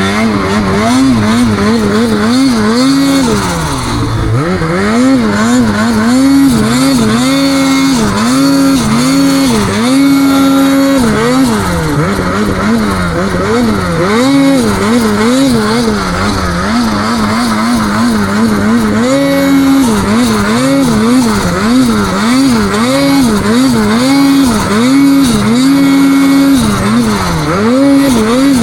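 Snowmobile engine revving up and down over and over as the throttle is worked, its pitch rising and falling every second or so, with a few short stretches held steady.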